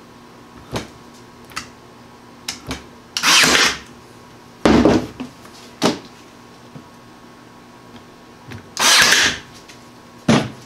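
Ryobi cordless 18-gauge brad nailer and crown stapler firing into thin pine trim over a 4x4 post. There are three loud, short shots, about three, five and nine seconds in, with lighter clicks and knocks between them.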